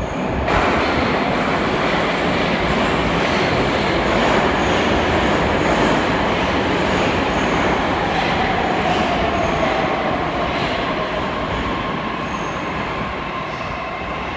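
Metro train running into the tunnel: a loud, steady rumble of wheels on rail. A tone slides down in pitch about eight to eleven seconds in, and the whole sound slowly fades toward the end.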